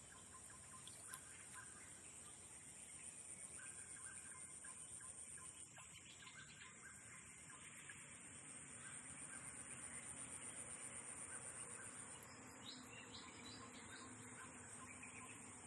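Faint outdoor ambience: scattered bird calls over a steady high-pitched hiss.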